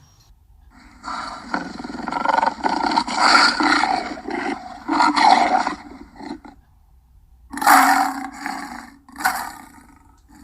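Lion roaring: a long, rough call of about five seconds, then after a short pause two shorter calls near the end.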